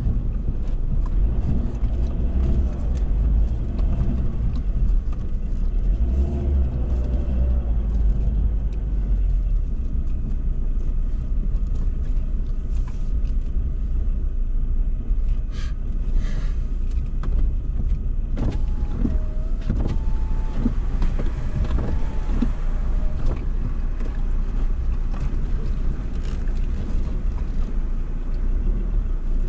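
Ford Ranger 4WD crawling over a rocky dirt track, heard from inside the cab: a steady low rumble of engine and tyres, with a few knocks and short squeaks from the vehicle jolting over rocks a little past halfway.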